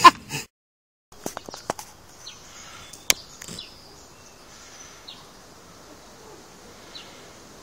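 Camera shutter clicking a few times: three quick clicks, then one loud click about three seconds in and a couple more, over faint outdoor background with a few brief bird chirps.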